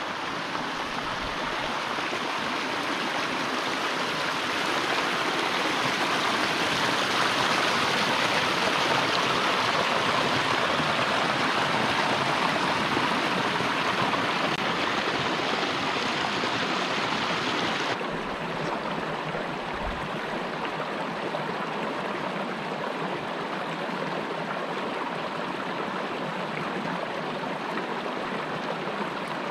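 Shallow rocky creek running and splashing over stones and a small cascade, a steady rush of water. About two-thirds of the way through the sound cuts abruptly to a quieter, duller flow of calmer water.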